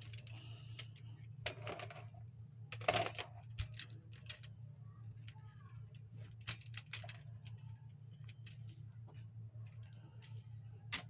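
Light clicks, taps and rattles of plastic and metal parts as a tripod light stand is handled and fitted together, with a few louder rustling strokes, over a steady low hum.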